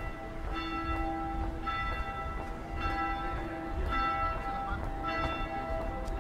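Church bells ringing, several bells of different pitch striking in turn about once a second, each note ringing on.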